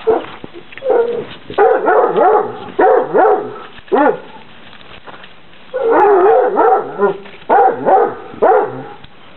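Basset hound puppies barking: a dozen or so short, high barks whose pitch bends up and down, in two runs with a pause of about a second and a half in the middle.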